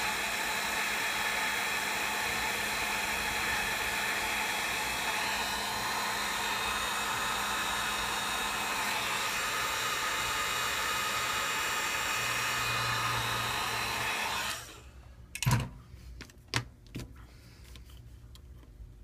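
Hot-air blower running steadily to warm and loosen adhesive stickers, switched off about three-quarters of the way through, followed by a few sharp clicks or taps.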